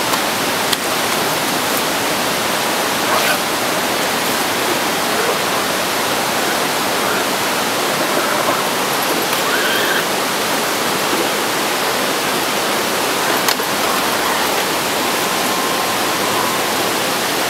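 Steady rushing of flowing stream water, with a few faint clicks.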